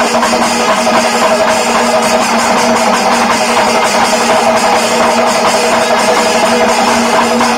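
Background music with drums over a steady held note.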